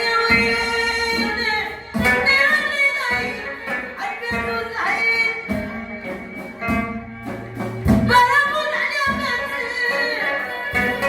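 Moroccan aita folk music: a wavering, ornamented melody from voice and violin over hand-drum beats.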